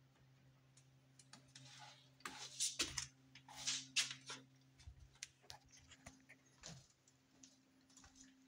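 Low steady hum of an electric pet drinking fountain's pump under scattered light clicks. A couple of seconds in comes a burst of louder rustling and clicking as the camera is handled and moved, and the hum stops near the end.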